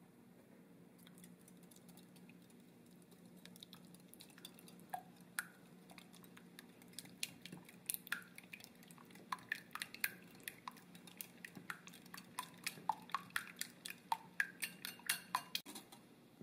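Wire whisk beating egg yolks and honey in a glass bowl, the whisk clinking against the glass in quick, irregular strikes, each with a short ring. The clinks grow faster and louder from about halfway through and stop just before the end.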